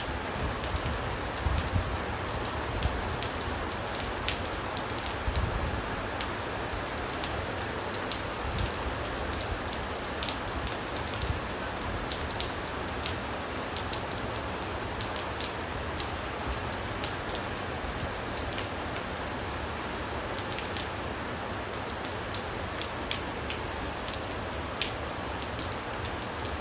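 Steady rain falling, a continuous hiss with many sharp individual drops striking a surface.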